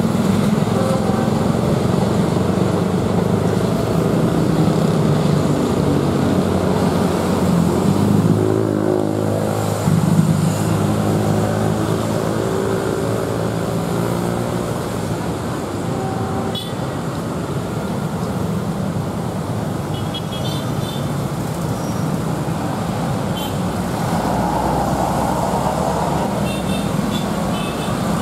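Steady road traffic and motorcycle engines. About eight seconds in, a passing engine's note falls in pitch, and it grows louder near ten seconds.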